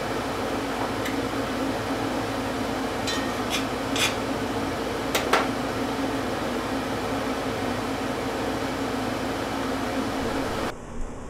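A steady whir of a running fan with a low hum, and a few light clicks about one, four and five seconds in. The whir drops away suddenly near the end.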